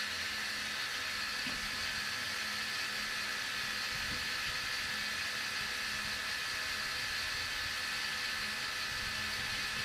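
Gas-heated cotton candy machine running, its spinning head whirring steadily with a few held tones over a hiss as it throws out floss.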